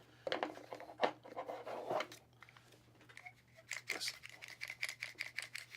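Handling noise of a DeWalt trigger bar clamp as its fixed jaw is taken off the bar after its screw is removed: scraping and rattling at first, then a run of quick, light clicks in the second half.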